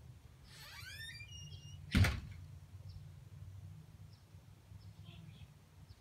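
A front door swung shut, closing with one sharp knock about two seconds in, after a brief squeak.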